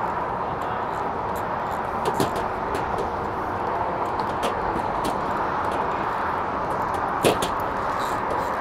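Steady rush of highway traffic, with a few light clicks from hardware being handled.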